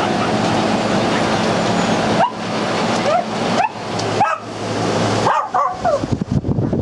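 Small dogs yipping, about six short rising yips from about two seconds in, over a steady whooshing background noise.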